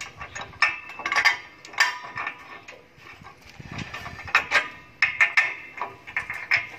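Irregular metal clinks and knocks, some ringing briefly, as steel parts of a concrete block-making machine are fitted together by hand.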